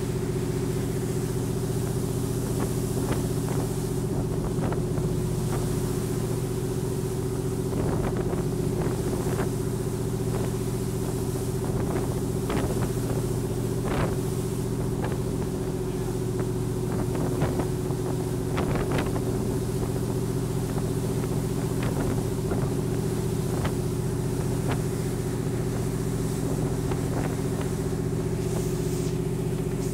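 A canal passenger boat's engine drones steadily at cruising speed. Water splashes against the hull and the plastic splash sheets now and then, most often through the middle stretch.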